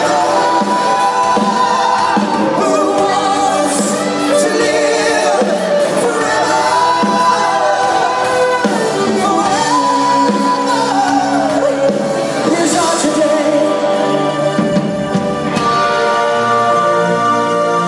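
Live rock ballad heard from the audience in an arena: a male lead vocal holding long, gliding notes over keyboards and band backing, with the hall's reverberation.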